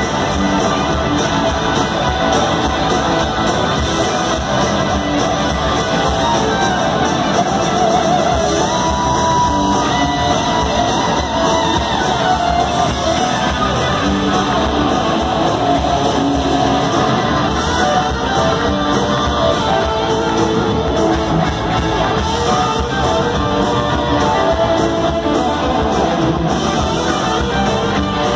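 Rock band playing live in a large hall: several electric guitars playing lead lines together over bass and drums.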